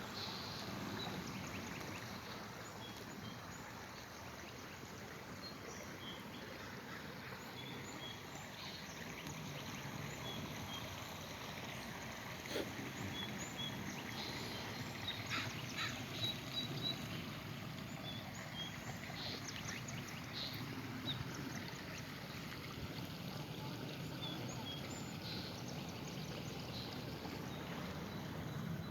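Outdoor ambience: a steady, low rushing background with short, high bird chirps scattered through it, including a quick run of them about halfway through.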